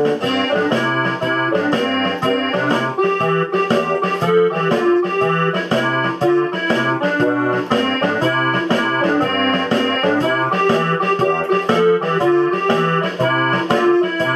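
Instrumental keyboard music, piano or electric piano, playing quick, evenly paced notes over a bass line.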